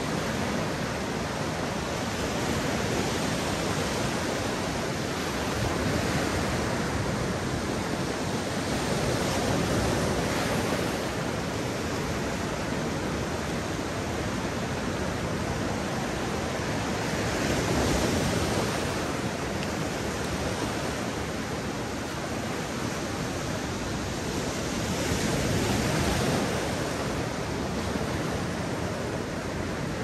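Mediterranean waves breaking and washing up on a beach: a steady rushing surf that swells louder every several seconds as each wave comes in.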